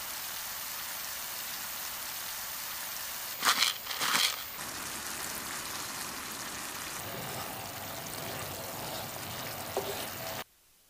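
Diced onions frying in a hot pan with a steady sizzle, swelling into two short louder surges about three and a half seconds in. Liquid is poured into the pan and it goes on sizzling and bubbling, then the sound cuts off suddenly near the end.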